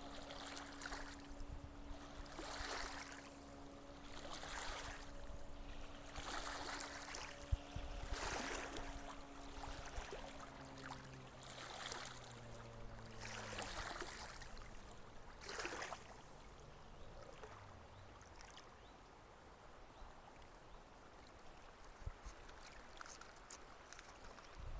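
River water splashing in regular surges every second and a half or so, which die away after about sixteen seconds and leave faint flowing water. Under them a distant motor hums steadily, then drops in pitch and fades out a little past halfway.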